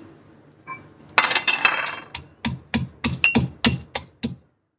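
Dry-roasted black and green cardamom pods clattering into a metal mortar, then the metal pestle pounding them about ten times, around four strikes a second, crushing the crisp pods. The strikes stop abruptly.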